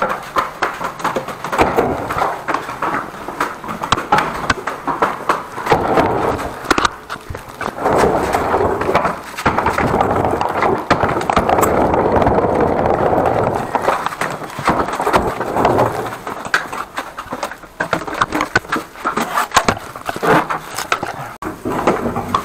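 Walking with a body-worn camera: irregular footsteps and rustling, rubbing handling noise as the camera shifts against clothing.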